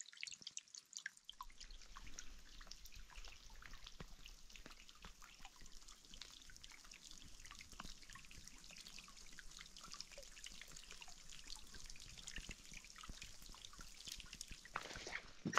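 Faint, irregular dripping of many scattered water drops. A low steady hum comes in about a second and a half in.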